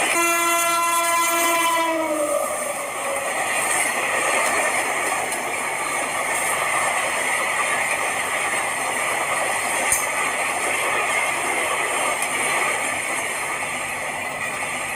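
An Indian express train's horn sounds one long blast for about two seconds, dipping in pitch as it ends. The steady rushing noise of the train running at speed follows.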